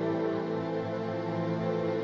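Background music of sustained, held chords.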